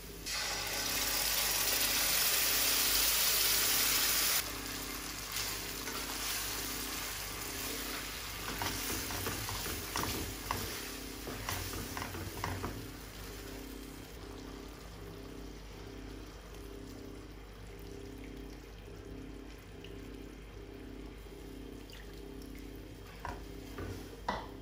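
Kitchen cooking sounds: a loud rushing hiss for about four seconds that cuts off suddenly, then scattered clinks and scrapes of utensils that thin out.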